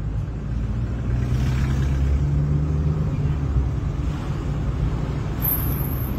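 A moving car's engine and road noise: a steady low rumble, with a brief swell of hiss about a second and a half in.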